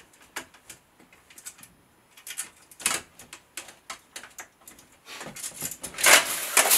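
Steel armour plates and their strap buckles being handled: scattered light clicks and clinks, a sharper clank about three seconds in, and a burst of metal clattering near the end.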